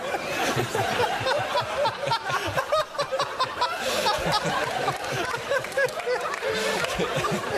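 Studio audience laughing without pause, many voices at once, with the host laughing along.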